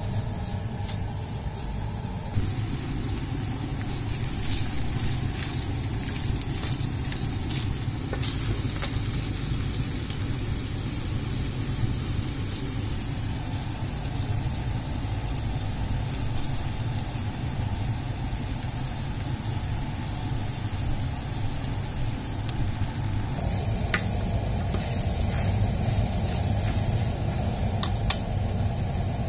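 Slices of kebab meat frying in a stainless steel pan, sizzling steadily over a low rumble, with a few short clicks of a plastic spoon stirring against the pan.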